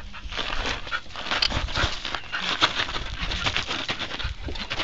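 Young Siberian husky panting and making short talking noises while moving about, with steps crunching on gravel.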